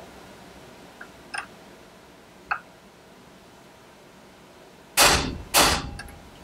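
Hammer strikes on a staking punch, peening the AR-15 receiver end plate into a notch of the castle nut. A few faint taps come first, then two hard metallic strikes about half a second apart near the end, each ringing out briefly.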